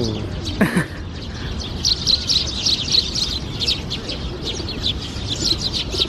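A flock of Eurasian tree sparrows chirping as they crowd in to be hand-fed. Short, high chirps come quickly one after another and grow dense from about two seconds in.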